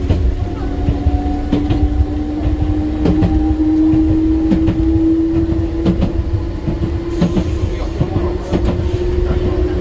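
Enoshima Electric Railway 300 series electric train running, with a low rumble and a steady whine that rises slightly in pitch and then holds. Wheels clack over the rail joints every second or so.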